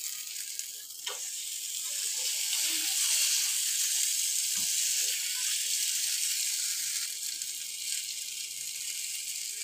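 Chicken tikka skewers frying in butter in a grill pan over low gas: a steady sizzle that swells for a few seconds in the middle, with a couple of light knocks.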